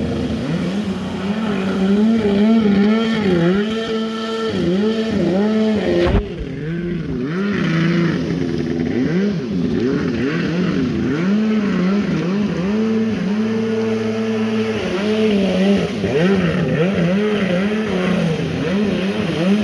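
Two-stroke engine with an aftermarket sport exhaust, revved up and down over and over, its pitch swinging in quick waves. There is an abrupt break about six seconds in, after which the revving goes on.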